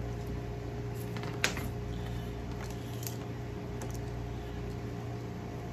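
A few light clicks and taps as a fencing body cord is handled and plugged in, the sharpest about one and a half seconds in, over a steady low hum.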